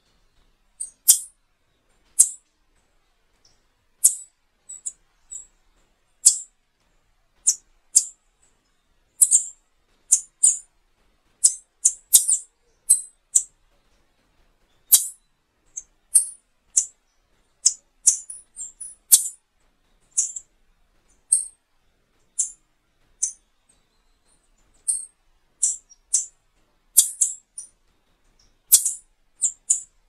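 Multicolored tanager giving short, very high, sharp call notes, about one or two a second at an irregular pace, with silence between.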